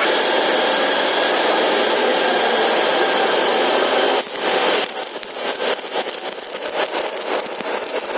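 Metalworking noise during welding work: a loud, steady machine whir with a few held tones for about four seconds, cutting off suddenly, then quieter irregular crackling and scraping.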